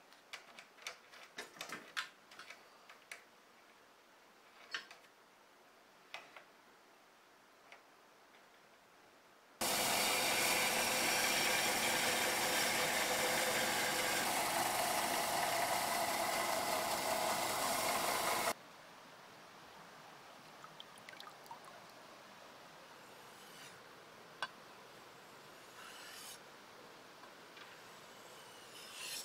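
Light metallic clicks and taps as a nut is turned onto the billhook's threaded steel tang. Then a bench belt sander runs loudly and steadily for about nine seconds, grinding the flat of the blade on the belt. Near the end come faint taps and scrapes of the blade on a whetstone.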